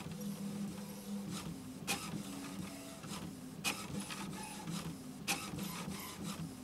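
HP Envy Photo 7155 inkjet printer printing an alignment page after new ink cartridges have gone in: a steady motor hum with a sharp click roughly every two seconds as the page feeds out.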